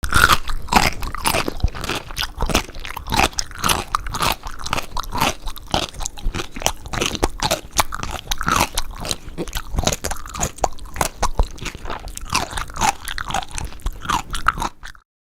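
A pickle being bitten and chewed: a steady run of crunches, several a second, with a loud bite right at the start. It cuts off suddenly near the end.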